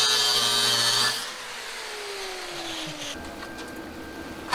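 Angle grinder cutting into rusted suspension steel, its high whine steady for about a second, then the disc is let off and winds down with a falling pitch over about two seconds. After that only a faint steady workshop hum.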